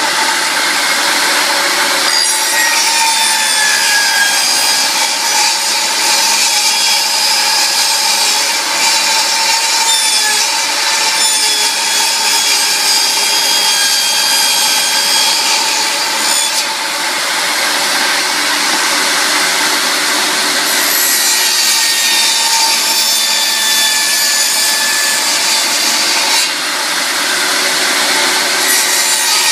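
Power saw cutting the vent opening in a laminate flooring board, running loud and continuous, its motor pitch wavering under load, with brief dips about sixteen and twenty-six seconds in.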